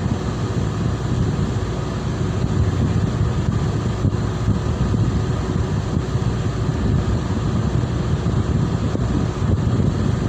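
Boat engine running steadily, with a low rumble of wind on the microphone.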